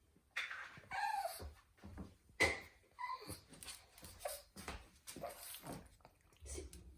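A bird singing: a rapid series of varied pitched calls, about two a second, several of them gliding down in pitch.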